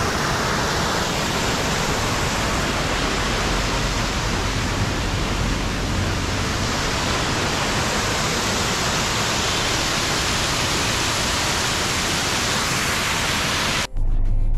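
Steady, even rush of falling water from a roadside waterfall in heavy rain, cutting off suddenly near the end.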